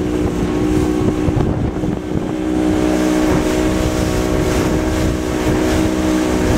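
Small fishing boat's engine running steadily, growing louder and fuller about two seconds in, with wind rumbling on the microphone.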